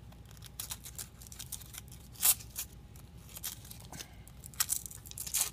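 Handling noise as a battery strap is threaded through the slots of a quadcopter frame plate: scattered light scrapes and clicks of the strap and plates, with one sharper click a little over two seconds in.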